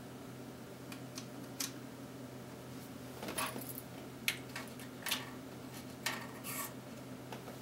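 Light plastic clicks, taps and short scrapes of a Canon EF 50mm f/1.8 II lens being handled: the focus being wound out and the small focus-limiter stop worked back into place. The clicks are scattered irregularly, with two longer scratchy patches near the middle and end.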